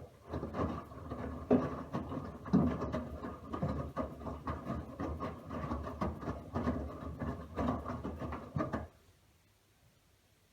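Front-loading Miele W1 washing machine drum turning during a wash, dark laundry tumbling in water with repeated irregular thuds and sloshing over the motor's rumble. It runs for about nine seconds and then stops suddenly, the drum pausing between tumbling spells.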